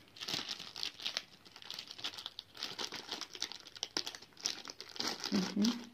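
Clear plastic packaging bag crinkling and rustling in the hands as it is handled and opened, in irregular crackles.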